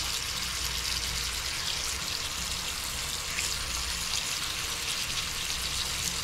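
A bathroom faucet running in a steady stream that splashes into the sink, with a razor cartridge held under it to wet it.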